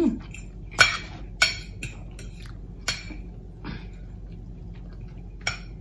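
Metal fork clinking and scraping against a plate while cutting into a Philly cheesesteak, about half a dozen short sharp clinks spread out, the loudest about a second in.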